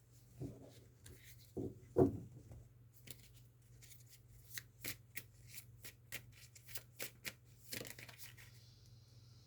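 Tarot cards being handled and shuffled: a run of light flicks and taps of card on card, over a faint steady low hum, with a short low sound about two seconds in.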